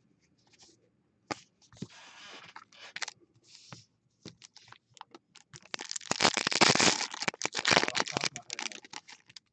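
A few light clicks and rustles of cards being handled, then a baseball card pack's foil wrapper torn open and crinkled, a loud crackling rustle lasting about three seconds in the second half.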